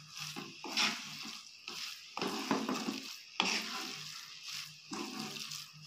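A spatula stirs and scrapes soya keema with diced potatoes and peas around a frying pan in irregular strokes, the mixture sizzling lightly on the heat.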